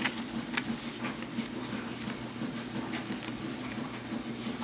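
Paper pages of a handmade journal being turned and tucked cards handled: a few short papery flicks and rustles. A steady low hum runs underneath.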